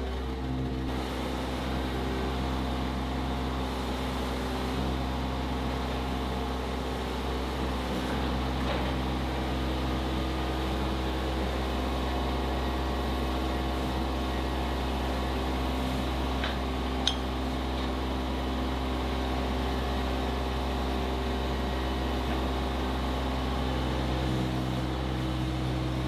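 Engine of a compact tracked stand-on loader running at a steady speed. One short sharp click about two-thirds of the way through.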